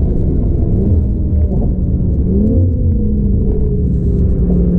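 Stage 2 tuned 2013 Audi TT RS's turbocharged five-cylinder engine under hard braking from about 180 km/h to 100 km/h, its revs rising twice, about one and two and a half seconds in, as it is shifted down.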